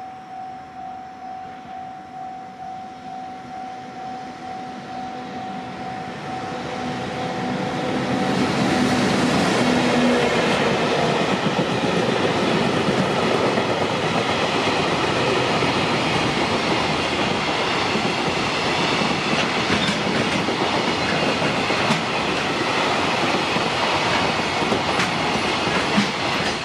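Japanese level-crossing warning bell ringing in an even repeated ding. From about seven seconds in, a JR Freight train passes close by, its locomotive and then a long string of freight wagons clattering over the rail joints and drowning out the bell.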